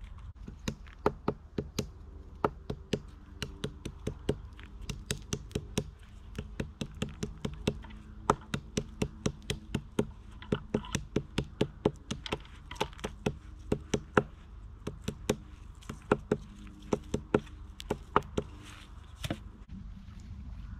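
A long run of sharp knocks or taps, about two to three a second and irregular in spacing, with a brief pause about six seconds in.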